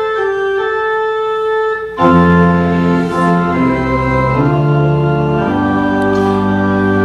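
Church organ playing a slow series of sustained chords. About two seconds in a deeper bass joins, and the chords change every second or so.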